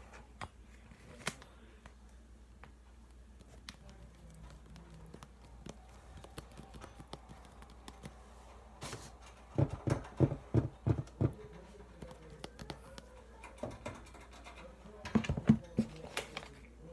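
Hands handling things right at the microphone: scattered light clicks and taps, with a run of dull knocks about ten seconds in and a shorter burst near the end.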